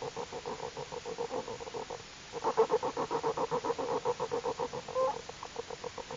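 Newborn black bear cubs motoring while nursing: a rapid, even pulsing hum of about eight to ten beats a second. It breaks off briefly about two seconds in and comes back louder. This is the normal contented sound of nursing cubs.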